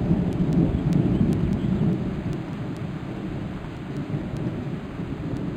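Thunder rumbling low and heavy, then dying down about two seconds in, over the steady hiss of rain.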